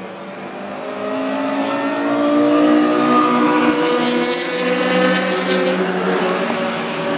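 Performance car engine running at high revs as a car comes down the circuit straight, growing louder about a second in and staying strong through the middle, its note rising and then falling away.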